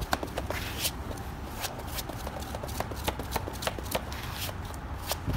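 Plastic spreader scraping and slapping through body filler on a mixing sheet, an irregular run of quick clicks and scrapes, as hardener is folded into the filler until it turns one colour.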